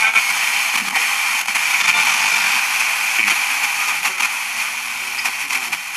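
Steady FM radio static hissing from a Trevi 12-band pocket radio's speaker as its tuning wheel is scrolled by hand between stations, with a few faint clicks and brief fragments of sound in the noise.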